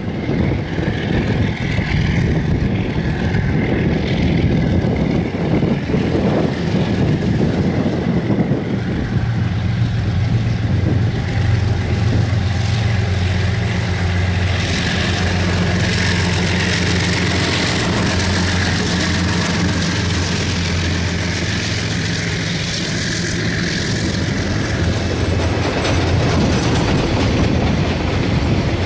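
Two KiwiRail DX class diesel-electric locomotives hauling a container freight train approach and pass, their diesel engines running with a low drone that swells as they come by. Near the end the container wagons roll past with the wheels clattering on the rails.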